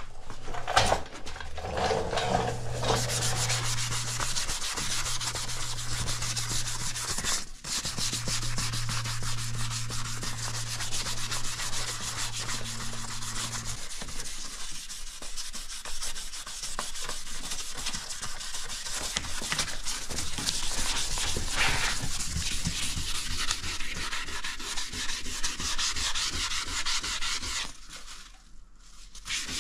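Hand sanding of a car bumper's repaired corner with fine sandpaper on a hand pad, a steady scratchy scrubbing that scuffs the surface before painting. A low steady hum sits beneath it for about the first half and then stops.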